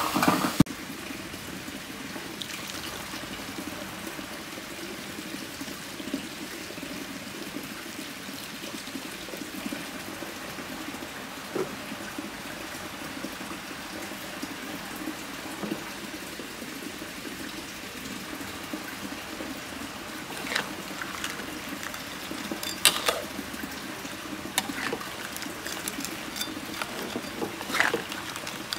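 Crabs in chilli paste and coconut milk simmering in a wok, a steady liquid hiss. A sharp knock comes right at the start, and several short clicks of the spatula against the wok come in the last third as the pot is stirred.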